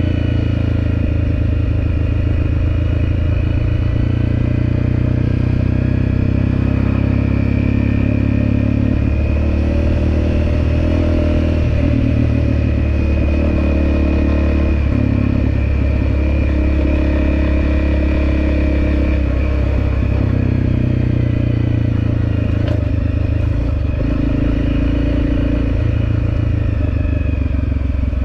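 Dirt bike engine running while riding, its pitch shifting up and down every few seconds with throttle and gear changes.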